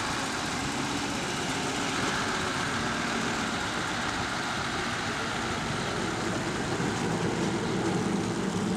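Heavy truck's diesel engine running steadily at low speed as the tractor unit pulls a loaded low-loader trailer slowly past, growing slightly louder near the end.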